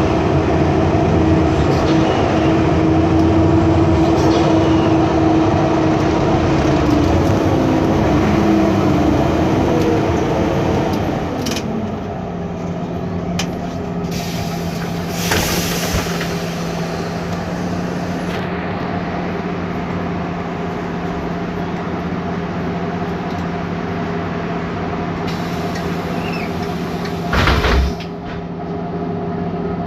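MAN Lion's City CNG city bus running, heard on board: its MAN E2876 gas engine and cooling-fan whine, dropping in pitch about a third of the way in and then holding steady. Two short hisses of air break in, the louder one near the end.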